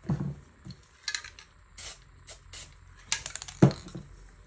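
A low thump, then several short hisses from an aerosol spray paint can, a quick run of clicks, and a louder thump near the end.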